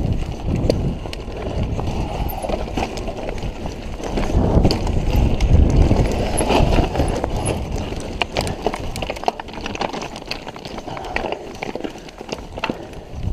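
Mountain bike rattling and clattering over a rocky trail, tyres crunching on loose stones with many sharp knocks, under a low rumble of wind on the microphone that is heaviest about four to seven seconds in.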